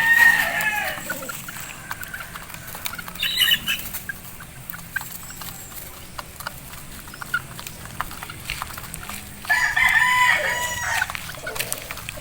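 Roosters crowing: one long crow right at the start and another starting about nine and a half seconds in, with a short high call about three seconds in and scattered faint ticks between.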